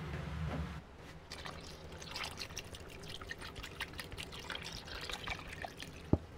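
A low steady hum stops under a second in. Then water pours and trickles into a plastic tub with many small splashes and popping bubbles. One sharp knock comes a little before the end.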